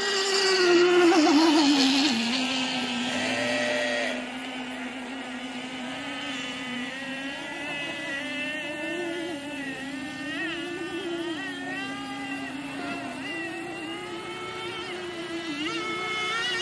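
Radio-controlled racing boat's small engine running at high revs, loudest as the boat passes close, its pitch falling sharply about two seconds in. It then runs on farther off, quieter, its pitch rising and falling.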